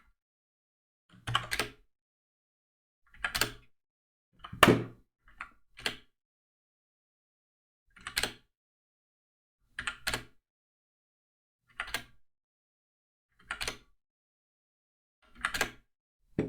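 Short clicks and taps from a computer mouse and keyboard, about one every two seconds, with a quick double click around five seconds in.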